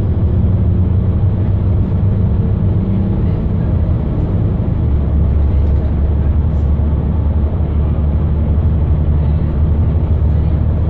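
Mercedes-Benz Citaro O530 LE bus's 12-litre OM457hLA six-cylinder diesel engine pulling hard under kickdown acceleration, heard from inside the bus cabin. A loud, steady low drone whose note changes about halfway through.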